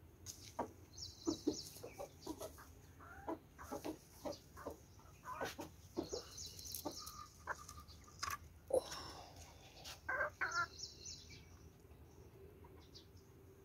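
Domestic chickens clucking: a long run of short, separate clucks that stops about eleven seconds in.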